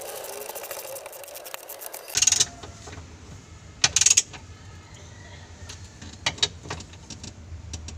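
Socket wrench working a bolt on a steering column: rapid ratchet clicking for about the first two seconds, then two loud sharp metallic clinks and a few lighter taps of metal tool on metal.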